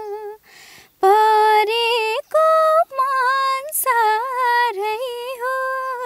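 A young woman singing a Nepali folk song (lok geet) unaccompanied. She holds long notes with small ornamental turns in the melody and takes a short breath about half a second in.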